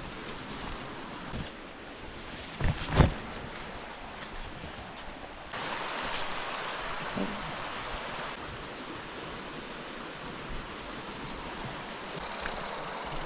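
Stream water rushing steadily, growing louder a little past halfway, with two sharp knocks in quick succession about three seconds in.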